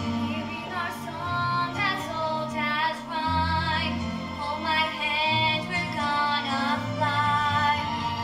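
A young girl singing into a stage microphone over musical accompaniment with held low notes, her voice carrying long sustained notes.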